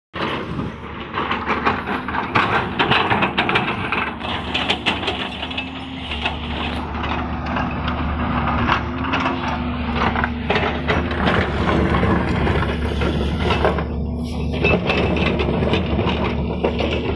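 Hydraulic excavator's diesel engine running steadily, a little louder from about six seconds in, with irregular clatter and scraping as the bucket levels the ground.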